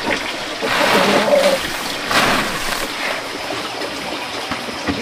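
Dry cracked corn and bran being mixed by hand on a woven bamboo tray: a dry rushing rustle of sliding grain in two strokes, about a second in and again about two seconds in.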